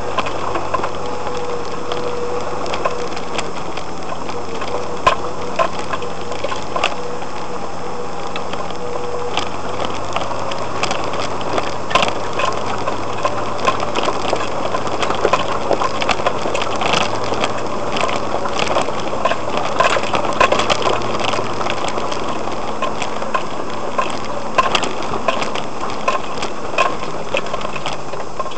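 Vehicle engine running steadily at low speed under load on a rough dirt track, heard from inside the cab, with frequent clicks and knocks from the body and contents rattling over bumps. A faint steady whine fades out about nine seconds in.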